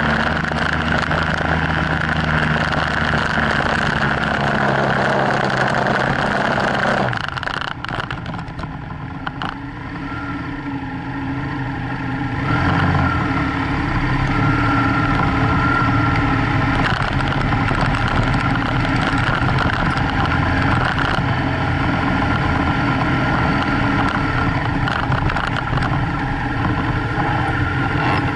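BMW F800GS parallel-twin engine running while riding a gravel track, with wind noise. It eases off about seven seconds in and is quieter for a few seconds, then pulls harder again a little before the middle and holds steady.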